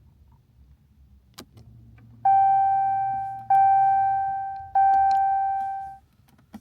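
Car's interior warning chime dinging three times, each tone striking sharply and fading over about a second, with a few clicks of the push-button start around it. No engine cranks: the newly installed kill switch is blocking the start.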